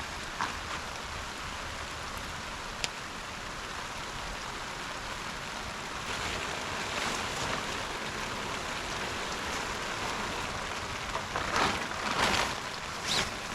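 Steady rain falling, an even hiss throughout, with a few louder short noisy bursts near the end.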